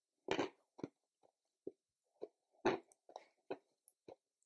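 A person crunching dry pet-food kibble between the teeth: a quick, irregular series of sharp crunches, the loudest about a third of a second in and again near the middle. The pellets are hard and crunchy but bite through easily.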